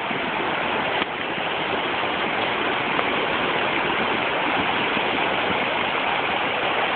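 Flash-flooded stream rushing out of control, a steady loud rush of water.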